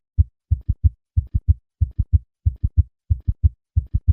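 Heart sounds in a gallop rhythm: low, short thuds, two or three to each beat, repeating at roughly 90 beats a minute. The extra diastolic sounds mark a gallop, the sign of third and/or fourth heart sounds.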